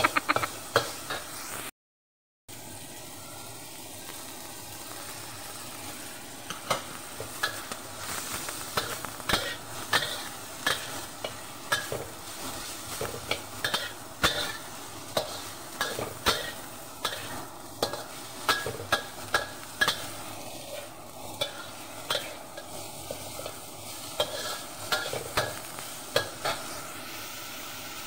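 Metal spatula scraping and knocking against a wok, about one stroke a second, over a steady sizzle as ground pork and green beans are stir-fried. The sound drops out for a moment about two seconds in.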